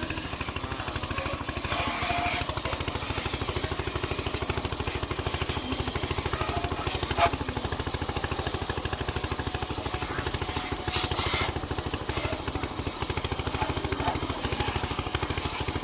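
Pressure washer's motor-driven pump running steadily, with a fast even pulsing beat, over a steady hiss.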